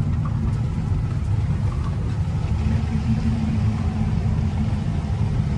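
Off-road vehicle's engine running steadily at low speed, heard from inside the cabin as a low drone, with a steady low hum joining in about halfway through.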